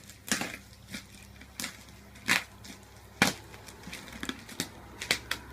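A blunt knife cutting and tearing through the packing tape and cardboard of a box, in a series of irregular short rips, the loudest about two and three seconds in.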